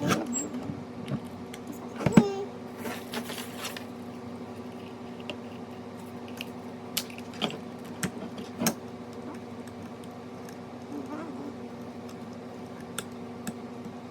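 Sewing-machine parts and packaging being handled: scattered clicks and knocks, the loudest about two seconds in, and a short rustle just after, over a steady low hum.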